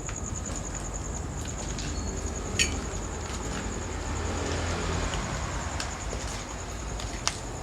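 Crickets chirring steadily in a high, fast-pulsing trill over low rumbling noise, with two sharp clicks, one a little over two seconds in and one near the end.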